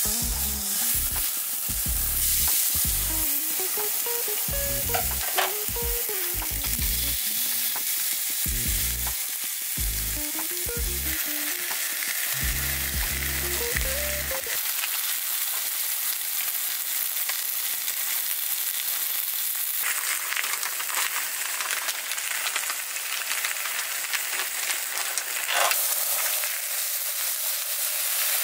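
Food sizzling as it fries in a hot pan, a steady hiss. A music track with a bass line plays under it for about the first half, then stops, leaving only the sizzling.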